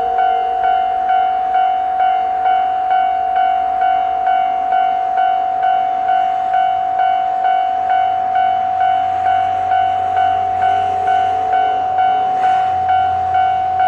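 Level-crossing warning bell ringing in an even, repeating pattern of about two strokes a second. From about halfway the low rumble of a JR Hokkaido H100 diesel-electric railcar rises beneath it.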